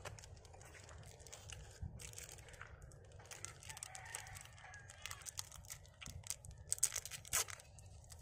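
Irregular crinkling and crackling with sharp clicks, as of something being handled or rustled, over a low steady rumble; the loudest crackles come about seven seconds in.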